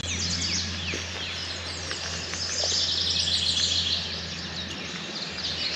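Several songbirds singing together in woodland, with many quick down-slurred chirps and a fast high trill about three seconds in. A steady low hum runs underneath and fades out near the end.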